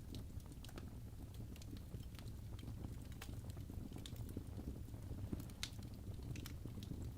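Wood fire burning in a fireplace: a low steady rumble with scattered sharp crackles and pops, several a second.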